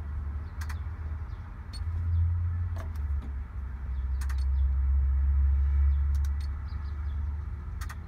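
Crane engine running in the cab with a low rumble that swells louder twice, about two seconds in and again from four to six and a half seconds in. Several short sharp clicks from the monitor's push-buttons being pressed.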